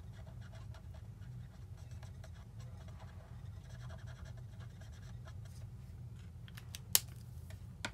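Faint soft scratching of a Stampin' Write marker's brush tip being rubbed over the back of a rubber stamp, inking it, over a steady low hum. A single sharp click comes near the end.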